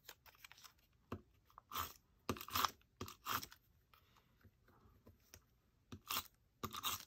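Tape runner laying adhesive on the back of a small paper label: a string of short strokes at uneven intervals, each pass of the runner over the paper.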